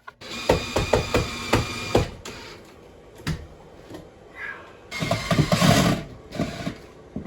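Woodworking tool noise from shelf building: a power tool runs in short spells with a string of knocks in the first two seconds and another noisy spell about five seconds in.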